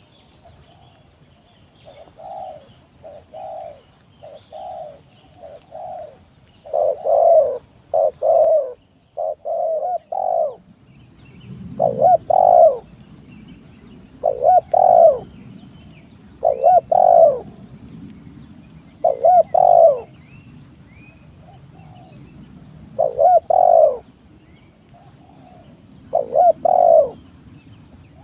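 Spotted dove (tekukur) cooing in repeated short phrases of a few coos each. The calls are softer at first and louder from about seven seconds in. A steady high-pitched whine runs in the background.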